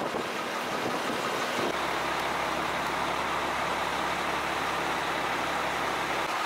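A heavy vehicle's engine idling: a steady low hum over outdoor noise, starting about two seconds in and cutting off just before the end. Before the hum there is only a steady rushing noise.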